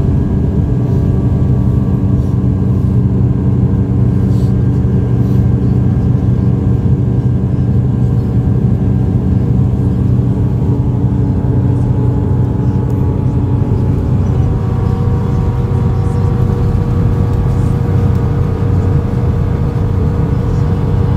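Vehicle engine running at a steady speed while travelling over lake ice: a constant drone with an even hum and rushing noise, no changes in pitch.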